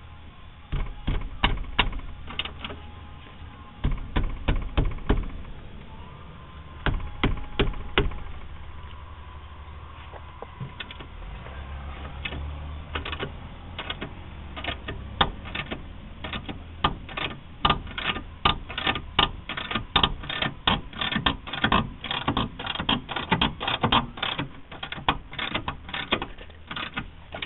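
Ratchet wrench turning a rusty rear shock-mounting bolt on a 1999 Honda Civic, the pawl clicking on each return stroke. Short runs of clicks in the first few seconds, then fast, steady clicking from about halfway as the strokes come quickly.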